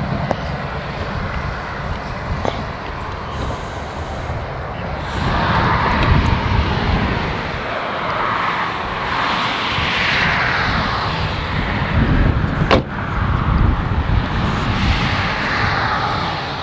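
Wind buffeting the microphone: a steady rumble with slow swells of rushing noise. One sharp knock about thirteen seconds in, the Mustang's trunk lid shutting.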